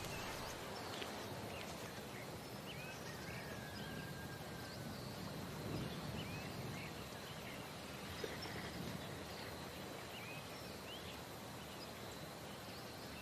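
Faint open-air ambience: a steady low hiss with scattered short bird chirps throughout.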